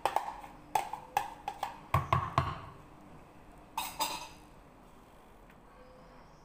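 A metal spoon knocking and scraping against a plastic container, knocking mashed banana out into a mixing bowl: a quick run of sharp taps and knocks, some with a dull thud about two seconds in, and one more clatter about four seconds in.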